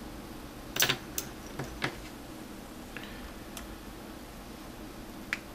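A few light clicks and taps of a small screwdriver and the plastic case of a 7-inch tablet being handled, the loudest pair about a second in and single ones scattered after it. A faint steady hum runs underneath.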